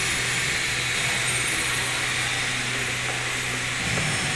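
Steady indoor ambient noise: an even hiss with a low hum underneath that breaks up near the end.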